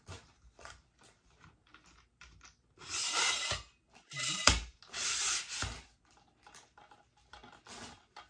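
Metal light stand being handled and its telescoping pole slid up through its collar, with short rubbing and scraping noises. Two longer scrapes come about three and five seconds in, and a sharp clack about four and a half seconds in is the loudest sound.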